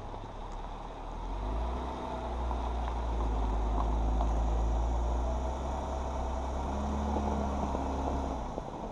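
Jeep Wrangler's engine running with a steady low rumble that grows stronger about a second and a half in and cuts off suddenly at the end.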